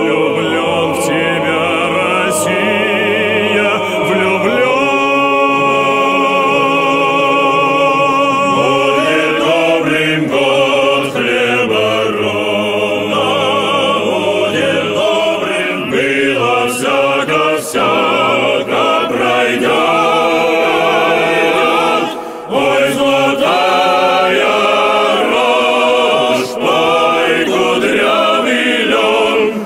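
Choir singing in close harmony, holding long, wavering chords between the sung lines of a Russian folk-style song, with a brief break about two-thirds of the way through.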